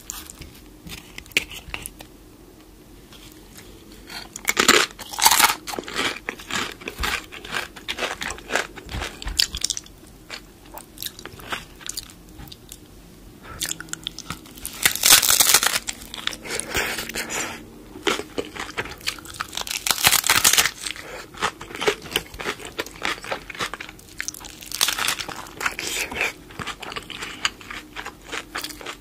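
Biting into crunchy hard-shell corn tacos: each bite is a loud crackling crunch, followed by chewing. The loudest bites come about 5, 15, 20 and 25 seconds in.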